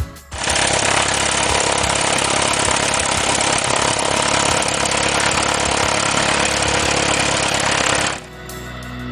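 Cessna 172SP's four-cylinder Lycoming engine and propeller running loud. It cuts in just after the start and cuts off sharply about eight seconds in, where guitar music comes back.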